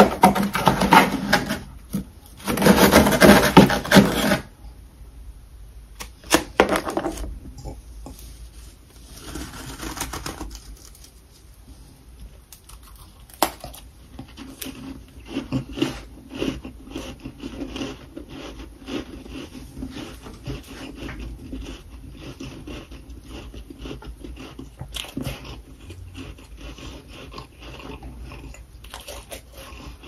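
Loud scraping of powdery freezer frost for about the first four seconds. Then close-up crunching and chewing of the frost in the mouth: many small crisp crackles, quieter than the scraping.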